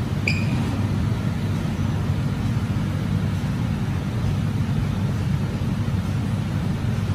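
Steady low rumble of an underground metro platform with its screen doors shut: station machinery and distant train noise in the tunnels. A single short, high chirp sounds about a third of a second in.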